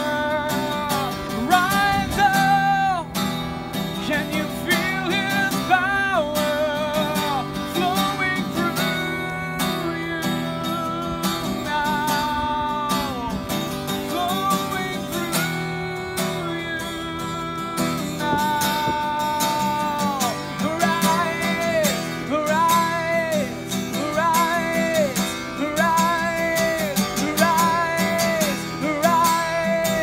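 A man singing long held notes with vibrato over a strummed acoustic guitar.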